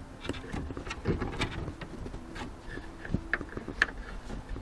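Scattered light clicks and knocks of small tools and parts being handled and moved about on a workbench, over a faint low hum.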